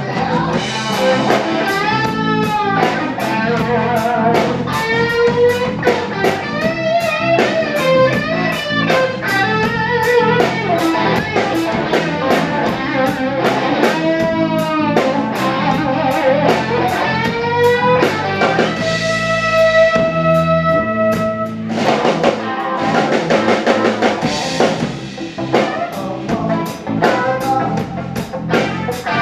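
Live rock band playing through a PA: electric guitar lead with bent, wavering notes over a steady drum beat and bass, with a long held note about two-thirds of the way through.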